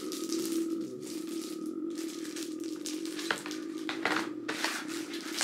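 Clear plastic knife packaging crinkling and rustling as it is handled and pulled at, with a few sharp crackles in the second half, over a steady low hum.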